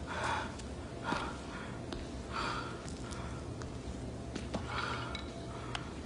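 A man breathing heavily in short, sharp breaths, about five of them a second or two apart, over a steady low hum.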